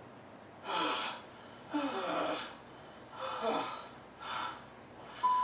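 Cartoon voices gasping heavily for breath, four ragged gasps in a row, out of breath after an ordeal.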